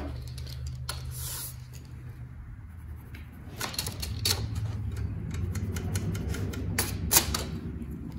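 Scattered light clicks and taps from a tape measure and pencil being handled on a plywood sheet, over a low steady hum.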